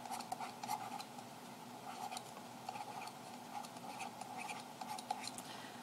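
Faint tapping and light scratching of a stylus writing by hand on a digital pen surface, a few small ticks a second, over a faint steady hum.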